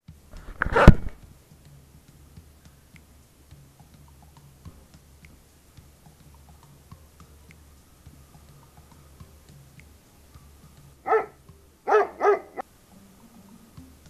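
A dog barking three short times near the end, after a loud sudden knock about a second in.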